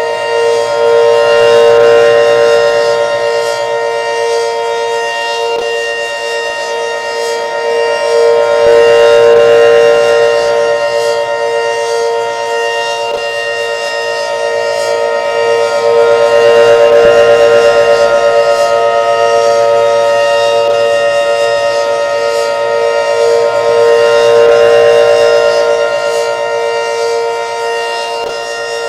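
Federal Signal 500DHTT outdoor warning siren sounding a steady, unchanging pitch. It swells louder and fades back about every seven to eight seconds as the rotating siren head sweeps past.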